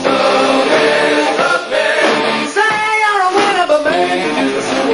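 Rock band playing loudly, with a male lead singer singing over the band.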